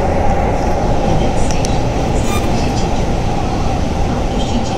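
Keihan Railway limited express train running at speed through a tunnel, heard from inside the carriage: a steady, loud rumble of wheels and running gear.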